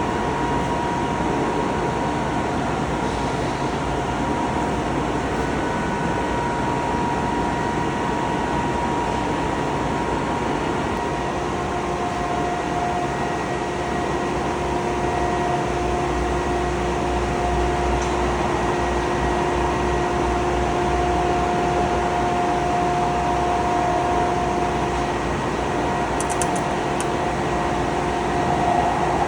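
Glass-cutting CNC machine running: a steady mechanical hum and hiss with a thin whine that shifts to a lower pitch about twelve seconds in.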